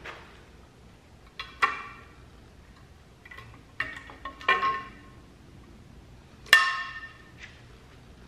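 Several sharp metal clinks, each ringing briefly, the loudest near the end, as the front timing cover is worked off a 4.8 V8 engine block on an engine stand.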